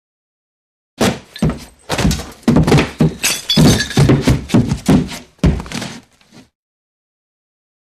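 A rapid run of heavy thuds and crashes, about three a second, starting about a second in and dying away after about five seconds: a cartoon impact sound effect.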